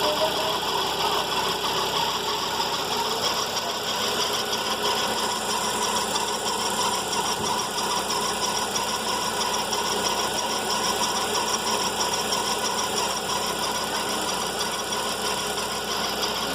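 Volkswagen Fox engine idling steadily, with the running noise of a faulty accessory-belt pulley bearing.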